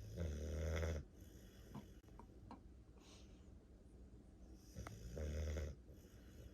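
Dog snoring heavily in its sleep: two loud, buzzing snores, one at the start and one about five seconds in, with a quieter stretch and a few faint clicks between them.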